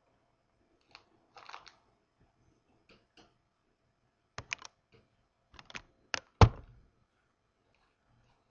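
Scattered sharp clicks and taps at a computer desk, like keys and a mouse being handled close to the microphone, with one louder thump about six and a half seconds in.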